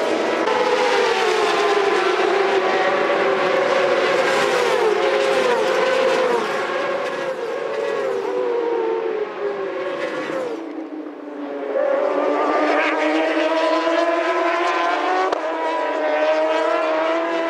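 Racing superbike engines running at high revs, their pitch rising and falling as the bikes accelerate and shift gears. About ten seconds in the sound drops away briefly, then the engines come back up.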